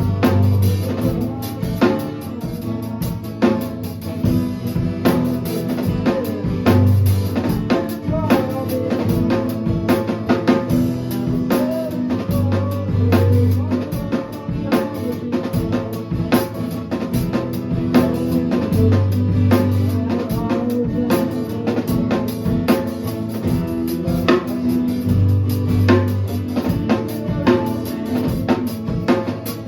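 A band jamming live: a drum kit plays a busy beat of bass drum, snare and rimshots over held low notes from amplified instruments, with deep bass notes swelling every few seconds.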